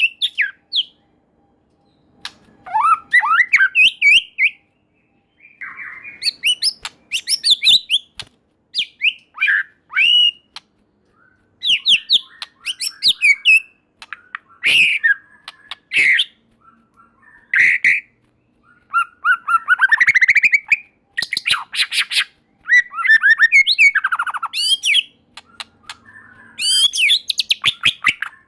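White-rumped shama singing in loud, varied bursts: sliding whistles and fast chattering runs of notes, with short pauses between phrases.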